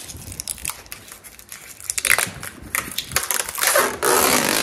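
Protective plastic film being peeled off a new window frame by hand: crinkling and crackling, then a loud, steady ripping as a long strip pulls away, starting just before the end.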